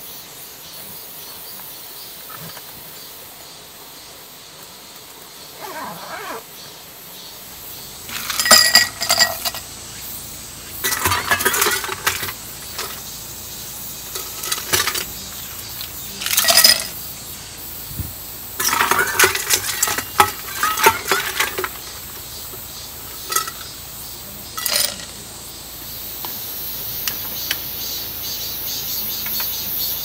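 Dishes and metal utensils clinking and rattling in several short bouts, with quiet gaps between.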